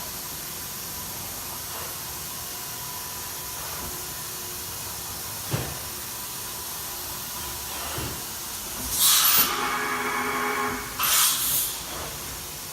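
Fanuc Robodrill vertical machining center running with a steady hiss and a faint steady tone. There is a single sharp click about five and a half seconds in, then two loud bursts of hissing air near the end.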